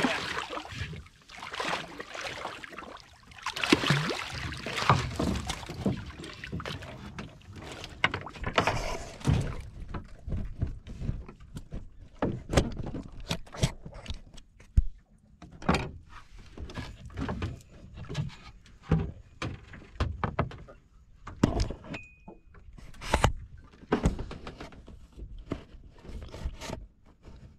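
A big fish thrashing and splashing at the water's surface beside a wooden boat as it is pulled in, for the first several seconds. Then scattered knocks and thumps on the wooden boat, with a brief high squeak about three-quarters of the way through.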